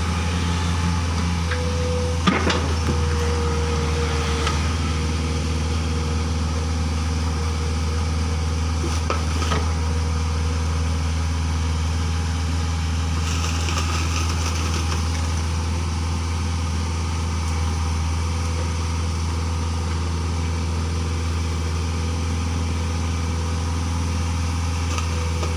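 Mini excavator's diesel engine idling steadily, with one sharp knock about two seconds in.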